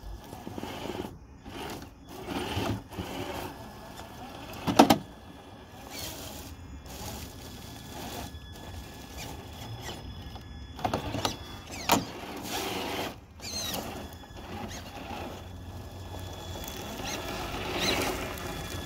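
Stock Traxxas TRX-4 RC crawler's brushed electric motor and gears whining in uneven bursts as it is throttled over rocks. A few sharp knocks come through, the loudest about five seconds in.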